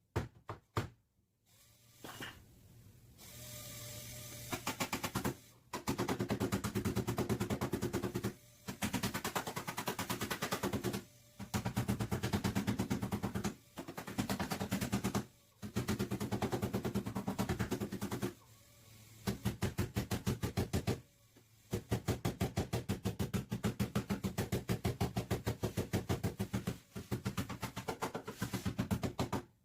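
Pneumatic body-shop tool hammering rapidly in about eight bursts of two to five seconds, stopping and restarting between them.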